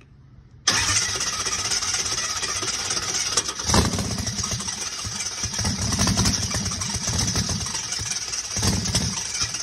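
Injected alcohol 454 big-block Chevy V8 being cranked over by its starter. It coughs and sputters briefly about 4, 6 and 9 seconds in but does not catch, because the engine is flooded with primer.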